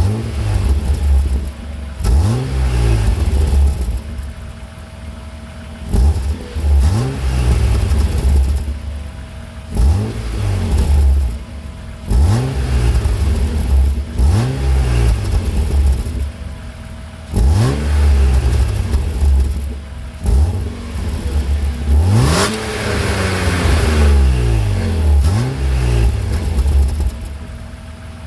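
BMW 323ti's 2.5-litre straight-six on its stock exhaust, revved in short blips about every two seconds, each rising sharply and falling back toward idle. About two-thirds of the way through, one rev is longer and louder than the others.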